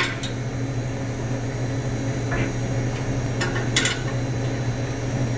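A few sharp metallic clinks as hands and a metal bar work the bolted clamps on a stainless steel tank lid, over a steady low mechanical hum.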